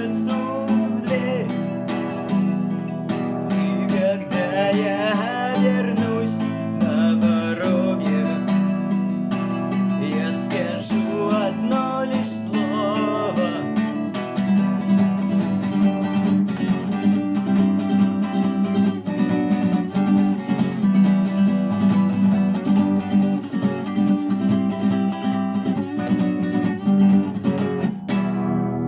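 Acoustic guitar strummed, playing a song's instrumental ending, with a wavering melody over the first half.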